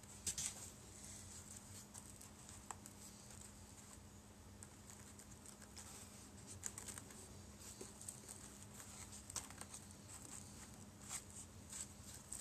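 Faint, scattered clicks and rustles of fingers handling small 3D-printed plastic parts and foam packing inside a cardboard box, over a low steady hum.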